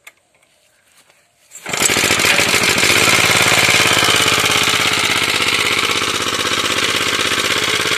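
Small engine of a portable water pump set being rope-started: it catches suddenly a little under two seconds in and then keeps running at a fast, steady beat, pumping water.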